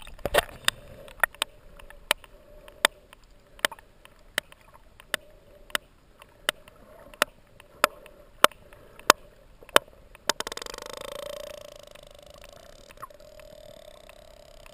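Sperm whale echolocation clicks heard underwater: loud, sharp clicks evenly spaced about two-thirds of a second apart, then a short, dense buzzing stretch about ten seconds in.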